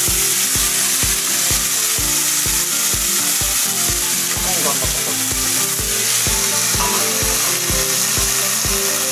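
Beef steaks frying in a pan, sizzling with a dense, steady, crackling hiss. Background music with a steady beat runs underneath.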